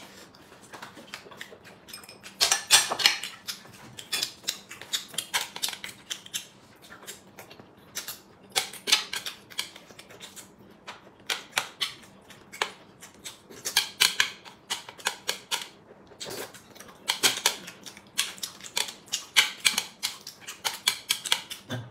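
A man eating boiled dumplings: chewing and mouth clicks come in bursts of rapid clicks every few seconds, with quieter pauses between.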